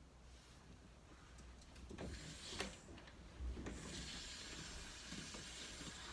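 A small battery-powered toy train motor running with a steady whirr, after a few light knocks of plastic pieces.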